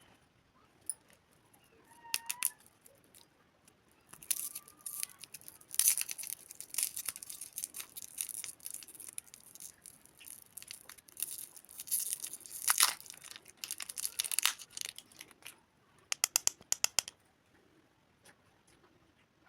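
Candy packaging being crinkled and torn open in a long run of crackling, ending with a quick string of sharp crackles.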